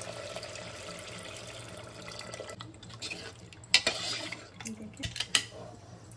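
Water poured in a steady stream into a pressure cooker of mutton and dal curry for about two and a half seconds. Then a few sharp metal clanks of the steel ladle and lid against the cooker, the loudest about halfway through.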